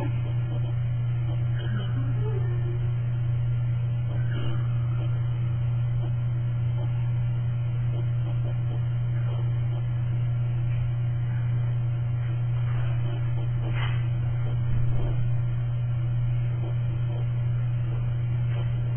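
Steady low electrical hum, like mains hum, with a few faint brief sounds over it, one small click about three-quarters of the way in.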